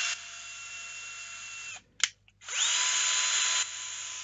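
Cordless drill turning a tapping bit to cut threads into a cast epoxy resin part. The motor whine drops in level, runs on and stops about two seconds in. After a sharp click it winds up again for another run, loud at first and then quieter.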